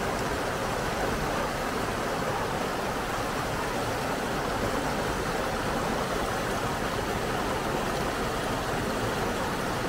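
Steady rushing of the River Affric's rapids tumbling over rocks in a gorge, an even, unbroken water noise.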